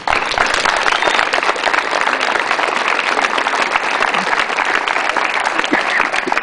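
Audience applauding, breaking out all at once and keeping up steadily.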